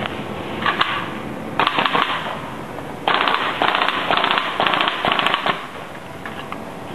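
LA Studio gas-blowback M4A1 airsoft rifle firing rapid bursts of shots, each shot a sharp crack with the bolt cycling. There is a short burst under a second in, another near two seconds, then several bursts back to back from about three seconds to five and a half.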